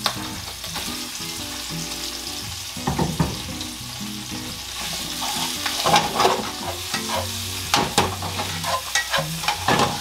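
Sliced onion, ham and eggplant sizzling in hot olive oil in a frying pan, with wooden chopsticks clicking and scraping against the pan as the vegetables are stirred. The clicks come thicker from about halfway through.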